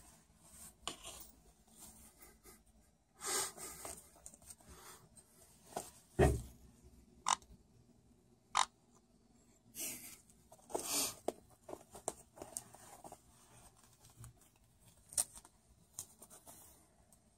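Caique parrot climbing a curtain: its claws and beak scraping and gripping the fabric and metal rod, the curtain rustling, with scattered sharp clicks and a dull thump about six seconds in.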